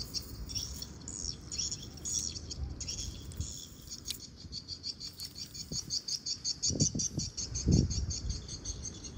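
Small birds chirping in fast, evenly repeated high notes, with a few dull low thumps and rustles about seven to eight seconds in as the cast net is handled on the grass.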